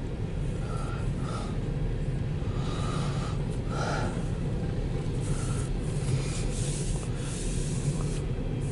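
Steady low rumble of an empty CSX coal train's hopper cars rolling past, heard from inside a car, with bursts of hiss in the second half.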